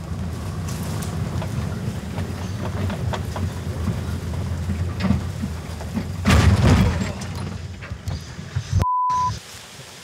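Four-wheel drive driving fast over a rough dirt bush track: a steady rumble with rattling and knocking from the body and suspension, and a louder clattering crunch about six seconds in. Near the end the sound drops out for a short one-note bleep.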